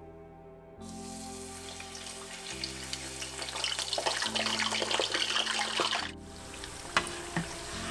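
Rice balls (supplì) sizzling and bubbling as they go into deep-frying oil at about 160 °C. The sizzle starts about a second in, grows louder, and drops away sharply about six seconds in, followed by a single sharp tick. Background music chords play underneath.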